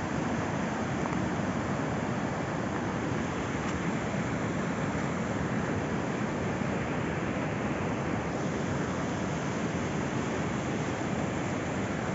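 Swollen river in flood, a steady rush of fast water.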